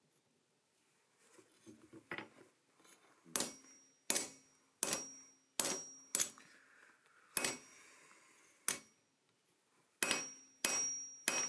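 Hammer blows on hot steel stock over an anvil, about ten strikes at an uneven pace of roughly one a second, several leaving a short metallic ring, after some light clattering of the tongs and work.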